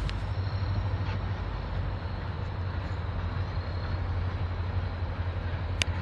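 Diesel locomotive running in a rail yard with a steady low drone and a faint high whine; a single sharp click near the end.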